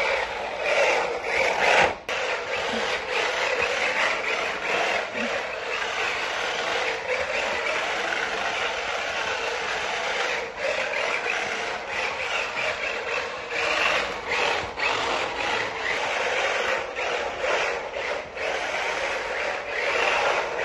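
Small 1/16-scale RC drift car driving and sliding on a smooth floor, its hard drift tyres scraping steadily, the sound swelling and easing as it turns.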